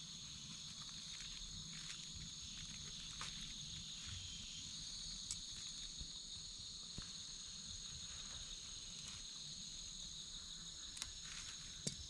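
Steady chorus of forest insects, a continuous high-pitched drone at two pitches, with a few faint light clicks now and then.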